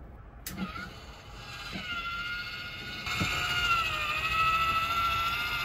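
Small 12-volt motor of a newly wired Fan-Tastic roof vent starting with a click, then running with a steady whine that gets louder about three seconds in.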